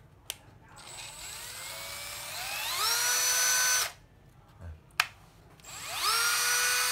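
Bosch 9.6 V cordless drill running twice. The motor whine climbs gradually in pitch as the variable-speed trigger is squeezed, holds at full speed, and cuts off when the trigger is released. After a sharp click, it spins up again more quickly and holds at full speed.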